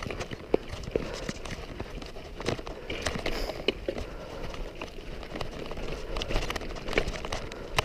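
Mountain bike rolling over a stony trail: tyres crunching on loose rocks, with irregular sharp knocks and rattles from the bike.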